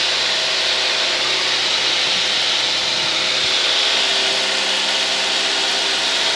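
Steady cabin noise of a single-engine light aircraft in flight: the engine and propeller running as a set of steady low tones under a loud hiss of airflow.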